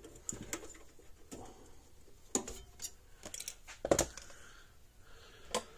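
Scattered small clicks and snips as wire cutters cut an old resistor off an electric fence charger's circuit board, the sharpest click about four seconds in.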